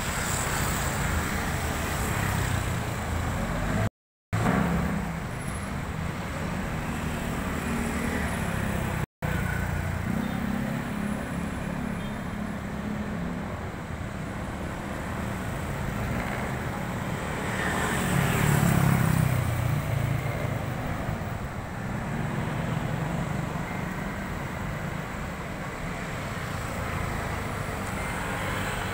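Steady road traffic noise, a low rumble, with a vehicle passing and growing louder about two-thirds of the way through. The sound drops out completely for a moment twice, early on.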